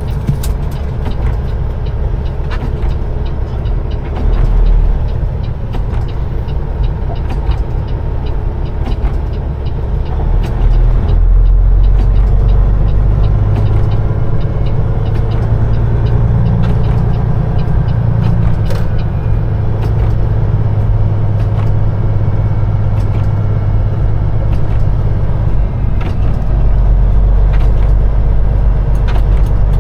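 Peterbilt 389 semi truck's diesel engine running as the truck drives, a steady low drone that grows louder about eleven seconds in and stays up.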